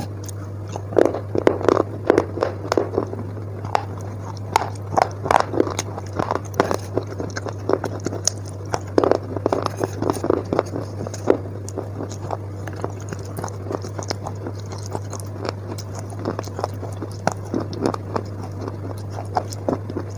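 Wet crushed-chalk paste being scooped with a spoon and chewed close to the microphone: bunches of gritty crunching and squelching clicks, denser in the first half and sparser later. A steady low hum runs underneath.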